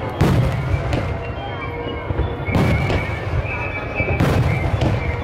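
Aerial fireworks bursting: three loud booms about two seconds apart, each with a short rumbling echo. Music and crowd voices run underneath.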